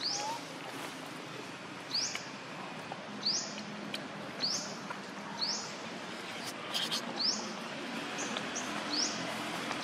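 A bird repeating a short, high, upward-sweeping chirp about once a second, over a steady background hiss.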